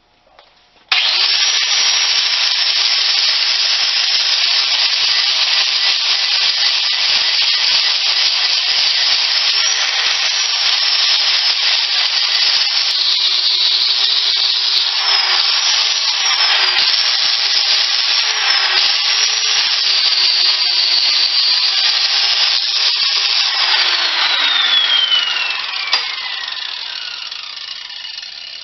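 Electric power tool cutting steel for welded braces. The motor starts about a second in and runs with a steady whine, dipping in pitch several times as it bears into the metal. Near the end it is switched off and winds down with a falling whine, with a single sharp click as it slows.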